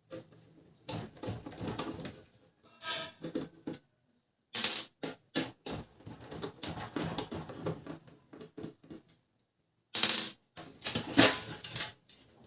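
Plastic and metal parts of a laser printer being handled and pulled out during disassembly: irregular clicks, knocks and rattles in short bursts, broken by a few silent gaps.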